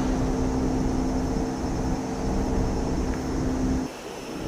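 Steady machine hum over a low rumble, which cuts out briefly near the end.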